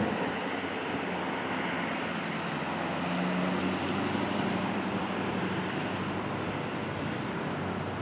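Road traffic passing: a steady rush of noise with a low hum that swells a few seconds in.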